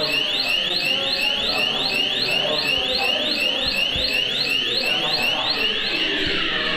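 Wall-mounted fire alarm sounder ('ALLARME INCENDIO' siren-flasher) sounding a loud, fast repeating rising sweep, about three sweeps a second. Near the end the sweeping tone changes to a slower, longer pattern.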